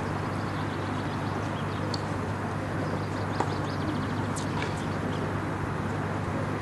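Outdoor park ambience between tennis points: a steady low hum with faint birdsong chirping in the trees, and a single faint click about three and a half seconds in.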